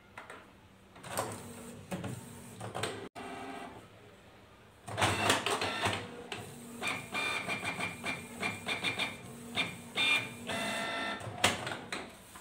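Canon ink-tank inkjet all-in-one printer making a copy. It clicks and whirs as it starts up and pulls in the paper, then its print carriage shuttles back and forth in quick, repeated whirring passes for several seconds.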